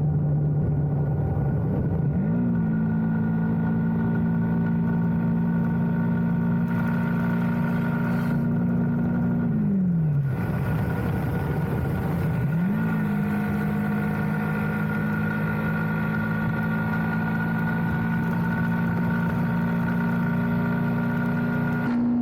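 Motorcycle engine running at a steady cruise on the highway. Its pitch rises about two seconds in, then drops away and picks up again around ten to thirteen seconds, as the rider backs off and reaccelerates.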